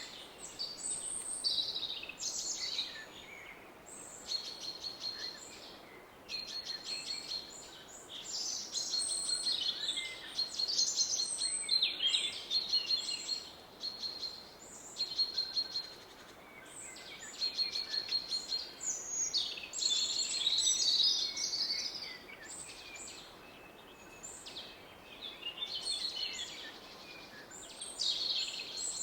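Several songbirds singing and calling in woodland, overlapping phrases coming and going in waves, over a steady faint rush of a distant river.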